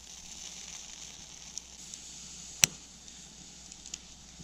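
A single sharp knock or crack a little over halfway through, over a steady faint hiss with a few light ticks.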